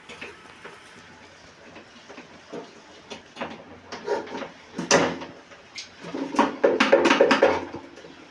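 Knocks and clatter from hand plumbing work: scattered at first, then a sharp knock about five seconds in and a denser run of clatter shortly after.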